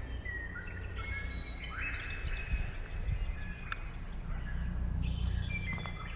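Birds singing and calling in short chirps and whistled notes, with a fast high trill about four seconds in, over a steady low rumble.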